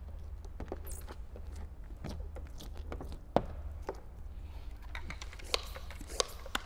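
Irregular light clicks and crinkles of paint protection film being handled and stretched over a car hood, with one sharper click about three and a half seconds in. A steady low hum runs underneath.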